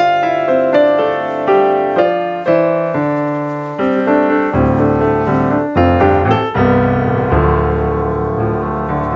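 Background music played on a piano: a run of struck notes and chords, each fading after it is struck.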